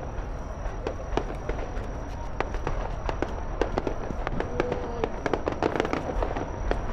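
Aerial fireworks going off: a run of sharp pops and crackles over a steady low rumble.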